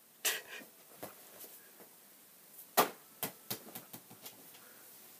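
A few scattered knocks and taps, the loudest a little under three seconds in, followed by a quickening run of lighter taps that dies away.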